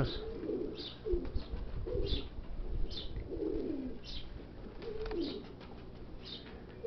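Domestic pigeons cooing, several low calls sliding down in pitch, with a short high chirp repeating about once a second.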